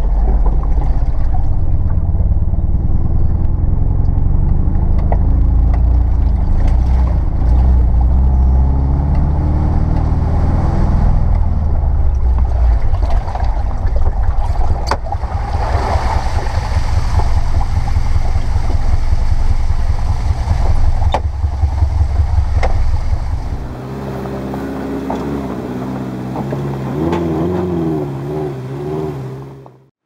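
A first-generation Subaru Forester's flat-four engine running rough on only two cylinders after a coil-pack failure, heard from inside the cab as the car moves along the track; a loud low rumble that turns into a rapid, even chugging about halfway through. The sound drops quieter and changes character for the last few seconds before fading out.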